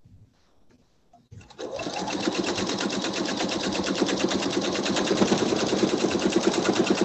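Pfaff sewing machine stitching fast during free-motion quilting: the needle runs steadily through the quilt layers while the quilt is guided by hand under a darning foot. It starts suddenly about a second and a half in after a few faint clicks, and grows slightly louder as it goes.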